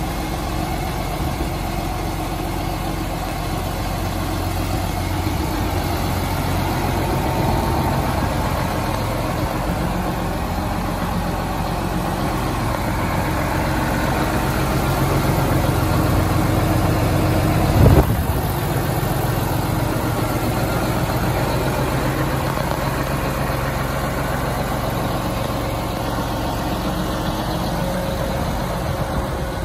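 John Deere 8330 tractor's six-cylinder diesel engine idling steadily, with one brief thump a little past halfway.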